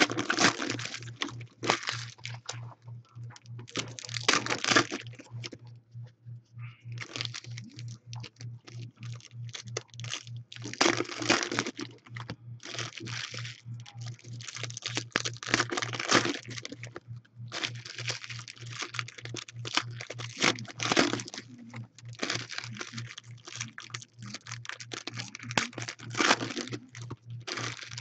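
Foil wrappers of Panini Prizm football card packs being torn open and crumpled by hand: repeated bursts of crinkling and tearing foil over a steady low hum.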